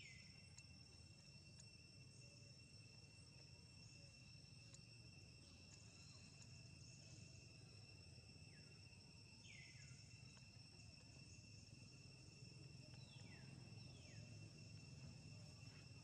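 Faint outdoor ambience: a steady, high-pitched drone of insects. Several short high chirps fall in pitch, at the start and again several times in the second half.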